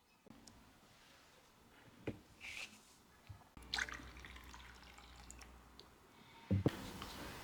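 Pieces of a tea set being handled, giving a few sparse light clinks and taps, one with a brief ringing note. A couple of louder knocks come near the end.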